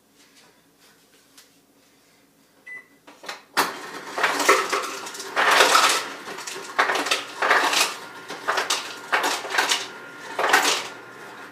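Ice cubes being gathered for a smoothie: a run of irregular rattling clatters that starts about three and a half seconds in, after a quiet stretch.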